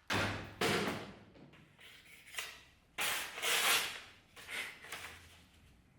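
A restored knife's blade cutting into something in a series of short rasping strokes at uneven intervals, the loudest about three and a half seconds in.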